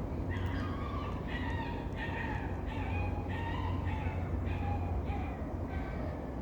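A puppy barking or yapping over and over, about three calls every two seconds, with a steady low hum underneath.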